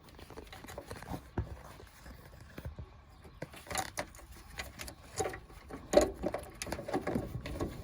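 Plastic clicks, taps and scrapes of a 9006 LED bulb being worked into the back of a headlight housing by hand, irregular and busier in the second half, with a sharp knock about six seconds in.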